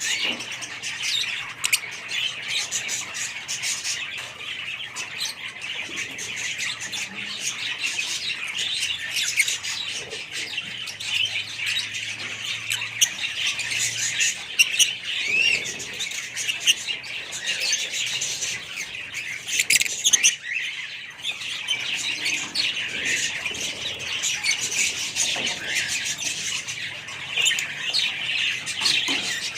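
Fischer's lovebirds calling together: a dense, continuous chatter of high-pitched chirps and squawks from several birds at once.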